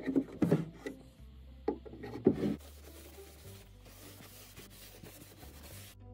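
A screwdriver working the screws of drawer hardware out of a wooden drawer front: several short knocks and scrapes of the tool against the wood in the first two and a half seconds, then quieter handling noise. Faint background music plays under it.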